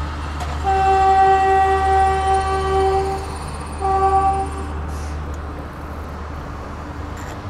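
Train horn sounding one long blast of about two and a half seconds, then a short blast about a second later, over a steady low rumble.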